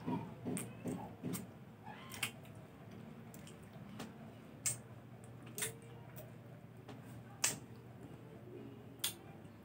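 A person chewing and sucking on a citrus slice. A quick run of chewing sounds in the first couple of seconds gives way to a handful of scattered sharp mouth clicks.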